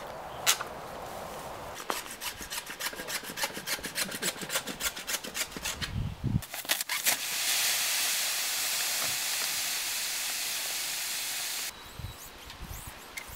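A rapid run of scraping, rasping strokes, then a steady loud hiss of sand pouring down the borehole around the PVC well pipe, which stops abruptly after about five seconds.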